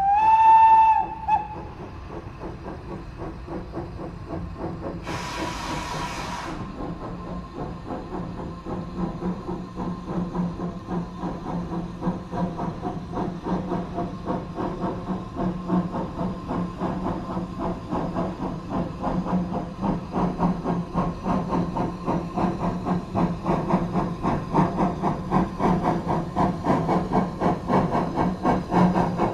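Manning Wardle steam tank locomotive sounding a short whistle. About five seconds in comes a brief burst of steam hiss. Then steady exhaust beats build, growing louder as the engine comes through a tunnel towards the listener.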